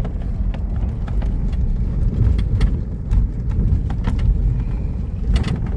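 Four-wheel-drive car driving over firm desert sand, heard from inside the cabin: a steady low rumble with scattered knocks and rattles.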